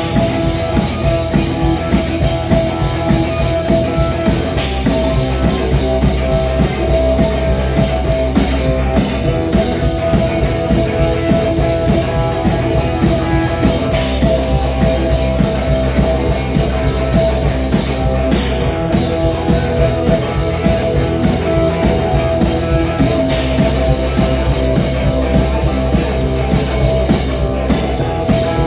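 Loud rock music on drum kit and electric guitar, keeping a steady driving beat, with a cymbal crash every four to five seconds.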